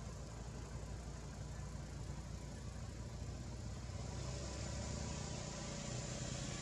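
A motor vehicle's engine running steadily, a low hum with a hiss over it that grows a little louder near the end.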